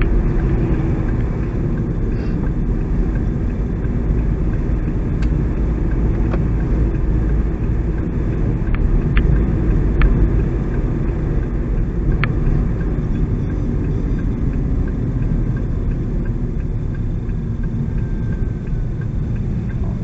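Road noise inside a moving car's cabin: a steady low rumble of engine and tyres, with a few faint clicks scattered through it.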